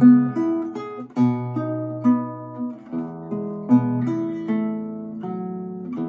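An 1852 Augustin Altamira Codina classical guitar played solo, fingerpicked: a quick run of plucked melody notes over ringing bass notes.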